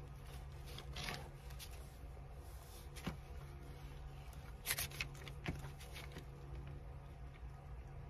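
Paper being handled: a short rustle, then a few sharp taps and clicks, the loudest just past halfway, over a steady low hum.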